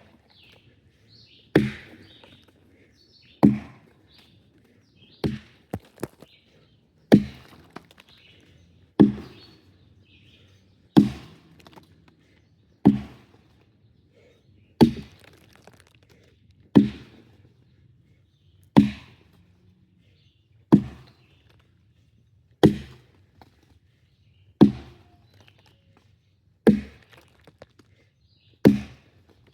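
Axe chopping wood, one sharp strike about every two seconds in a steady rhythm, with faint birdsong in the first few seconds.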